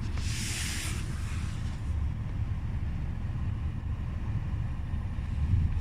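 Lada Vesta's engine running, a steady low rumble heard from inside the cabin, with a brief hiss about a second long at the start.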